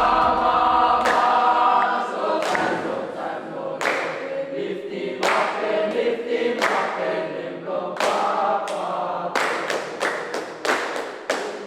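A group of voices singing together in harmony, with a sharp percussive hit about every second and a half that comes faster near the end.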